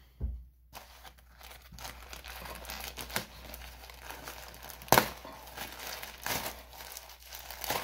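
Silver plastic mailer package crinkling and rustling as it is handled and torn open, with a sharp click about five seconds in.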